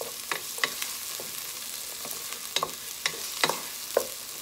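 Garlic, onion and ginger sizzling in hot oil in a nonstick pot, stirred with a wooden spoon that gives irregular scrapes and taps against the pot.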